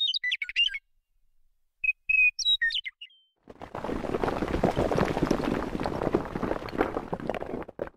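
Birds chirping and whistling in short phrases, then from about three and a half seconds a dense crackling rumble of crumbling stone that runs until just before the end.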